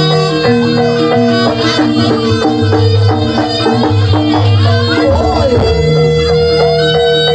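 Loud Javanese jaranan accompaniment music. A reedy wind instrument plays over a held drone note, with percussion and low notes that shift every second or so.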